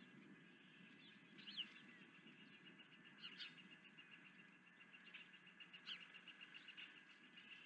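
Faint bird calls: a fast, even run of short high chirps, about six a second, with a few louder, sharper chirps over it, against a low background hiss.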